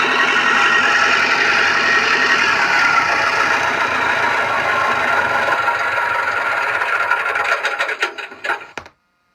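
Simulated model-aircraft engine sound from an RC sound system, played through a driver mounted on a foam veneered wing. It runs steadily, then slows into separate beats, fades and cuts off near the end.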